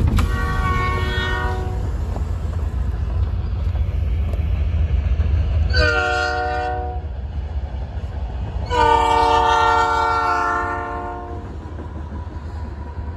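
Diesel freight locomotive's air horn sounding for a grade crossing in three blasts: a fainter one at the start, a short one about six seconds in, and a longer, louder one about nine seconds in. The low rumble of the approaching train runs underneath.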